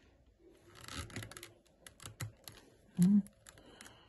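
Rolled newspaper weaving tubes and a wooden-handled awl clicking and rustling against the woven basket wall as a tube is worked in beside a stake: scattered small ticks and a crinkly rustle about a second in. A short, louder low tone sounds once about three seconds in.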